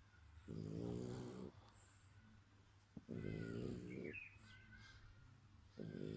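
A dog snoring in its sleep: three slow, rattling snores, each about a second long and spaced roughly two and a half seconds apart.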